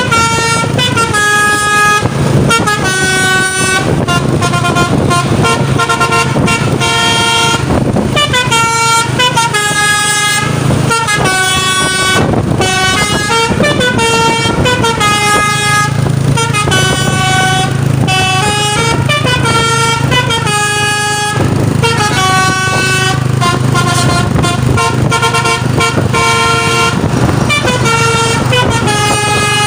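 Truck's basuri telolet multi-tone horn playing a melody: a quick run of held horn notes stepping up and down in pitch, over the steady hum of the engine.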